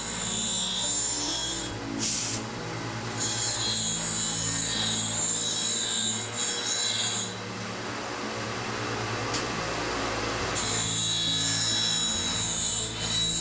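Peerless 7000 reel grinder relief-grinding a mower reel: the relief grinding stone hisses against the reel blades as the carriage traverses, over the steady hum of the motors. The grinding hiss drops away twice, briefly and then for about three seconds, while the hum carries on.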